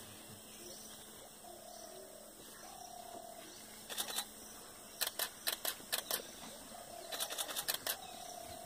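Camera shutters clicking in quick bursts: a few clicks about four seconds in, a run of about six just after five seconds, and a faster run of about eight near the end. Faint short calls sound now and then behind them.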